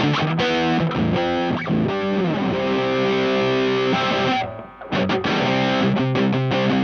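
Sire L7 electric guitar playing distorted chords and riffs through the Space Sounds Spacecraft, a Rat-style distortion pedal set to its silicon-diode clipping. Some notes slide down in pitch near the middle, and the playing stops briefly about two-thirds through before starting again.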